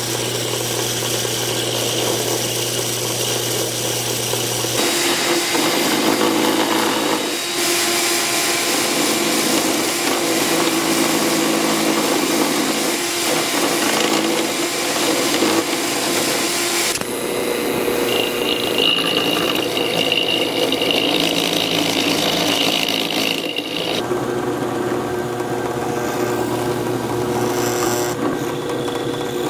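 Drill press running, used as a router to cut a slot in a workpiece; a steady motor whine with cutting noise that changes character several times as the work is fed against the bit.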